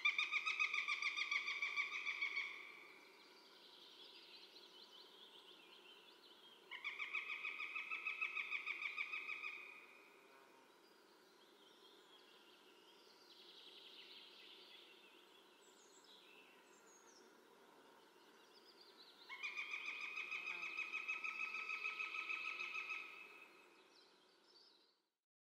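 Northern goshawk giving its rapid kek-kek-kek call: three series of fast repeated notes, each two to four seconds long. The first starts at once, the second about seven seconds in, and the third about nineteen seconds in.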